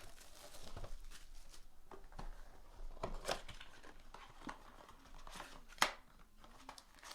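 Card boxes and their wrapping being handled and opened: scattered rustles, crinkles and light clicks, with one sharper snap about six seconds in.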